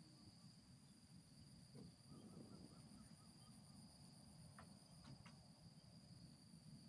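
Near silence: faint outdoor ambience with a steady high-pitched insect drone, a low rumble underneath and a few faint chirps and clicks. The approaching airliner is not clearly heard.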